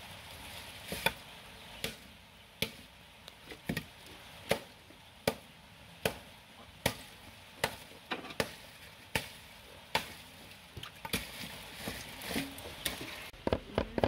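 Cleaver striking a wooden chopping board in slow, even strokes, about one every 0.8 seconds, with denser strokes right at the end.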